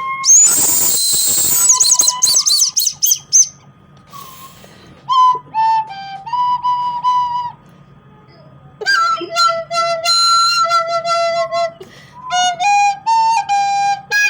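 Carousel music: a simple tune in single high, whistle-like piped notes, coming in about five seconds in after a stretch of hissy noise with warbling high tones.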